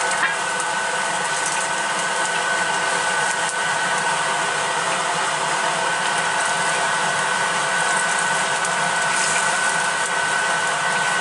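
A fan motor whirring steadily with a constant high hum, a kitchen exhaust-type blower, and a few faint clicks of chopsticks and pork against the wok.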